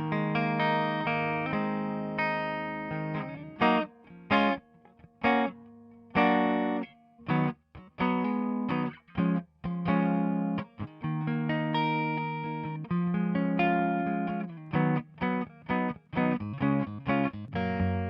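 Electric guitar part playing chords and single notes, some held for a few seconds and others cut off into short choppy stabs, heard through the Softube Tape emulation plugin.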